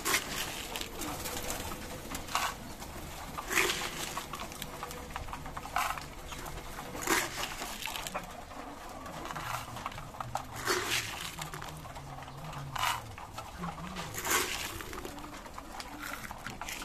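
Racing pigeons cooing in their loft cages, low and wavering, more of it in the second half. Short sharp taps or clicks come every second or two.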